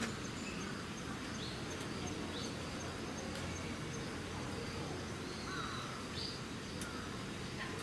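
Steady outdoor background noise with a handful of short, faint bird chirps scattered through it and a faint thin high insect tone.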